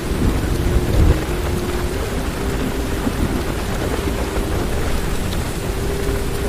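Heavy rain drumming steadily on a car's roof and windows, heard from inside the car, with a low rumble of thunder swelling about a second in. A faint steady hum runs underneath.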